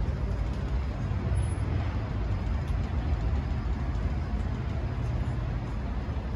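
Steady outdoor city ambience: a low, even rumble of road traffic with no distinct events.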